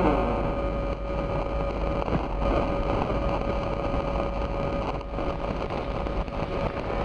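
Dark noise passage in a breakcore electronic track: a steady rumbling, hissing texture with a deep low rumble and a single held tone, with no clear beat.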